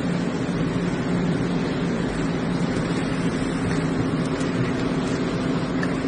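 Steady low background hum over a constant rush of noise, with no single events in it.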